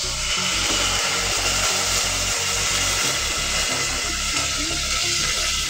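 Canned sardines going into hot oil with sautéed garlic and onion and sizzling steadily; the sizzle starts suddenly as they hit the pan.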